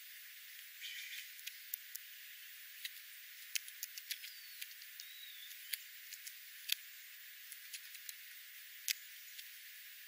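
Steller's jay and scrub jay pecking at birdseed on gravel: irregular sharp clicks and taps over a faint hiss, with two faint high chirps near the middle. Heard through a parabolic dish microphone with the low end filtered out, so the sound is thin and bright.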